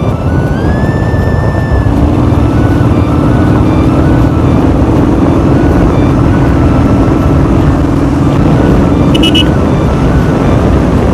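Motorcycle riding along a road: engine running steadily under heavy wind noise on a handlebar-mounted microphone. A steady low hum joins about two seconds in and fades near the end, and a brief high chirp sounds about nine seconds in.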